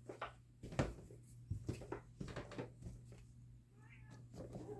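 Light kitchen clatter, a run of small clicks and knocks from dishes and utensils as cat food is prepared, with a faint cat meow about four seconds in. A steady low hum runs underneath.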